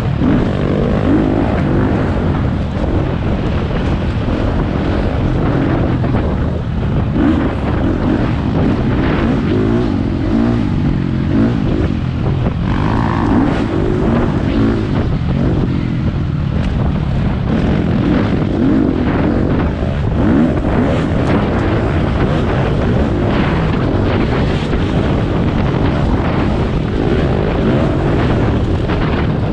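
Four-stroke dirt bike engine pulling hard on a trail ride, its pitch and level rising and falling with the throttle, with wind buffeting the microphone.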